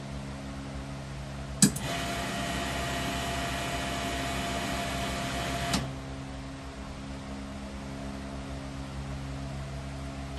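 Alpha Vac vacuum machine running with a steady hum. About one and a half seconds in, a valve clicks open and a loud hiss with a steady whine runs for about four seconds, then cuts off with another click.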